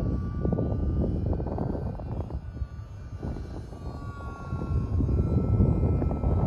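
Distant whine of an RC model plane's small E-flite BL180 brushless electric motor and propeller in flight, a thin steady tone whose pitch rises near the end. Heavy wind noise rumbles on the microphone underneath.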